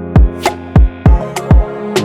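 Background music: an electronic track with a steady kick-drum beat over held synth tones.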